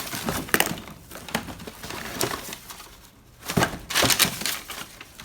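Hands rummaging through a box of assorted household items: scattered knocks and clatters of objects against one another, with a louder cluster of clattering about three and a half seconds in.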